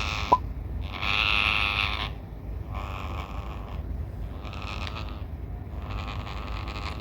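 Indian ringneck parrot making raspy, breath-like hissing sounds, one about every two seconds, with a short sharp rising chirp near the start.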